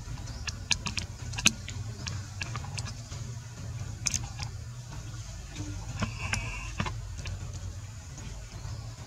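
Outdoor ambience: a steady low rumble with scattered sharp clicks and crackles, and a brief high-pitched squeak about six seconds in.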